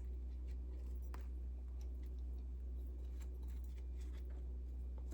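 Steady low hum with a few faint light clicks and soft scrapes of small handling.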